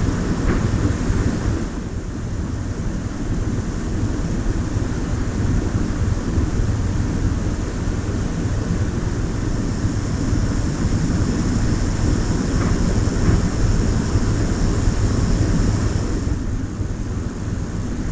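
A GoPro Hero 10 camera's own recording noise: a steady low rumbling hiss with no other sound, which changes character slightly about two seconds in and again near the end.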